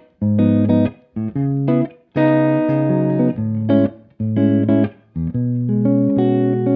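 Solo jazz guitar playing chords over low bass notes, in short phrases broken by brief silences.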